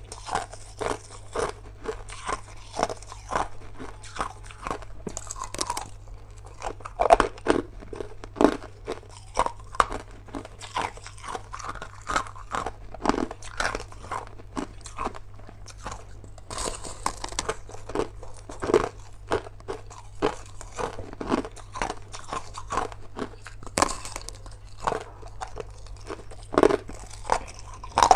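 Crushed ice being bitten and chewed: a continuous, irregular run of sharp crunches, several a second.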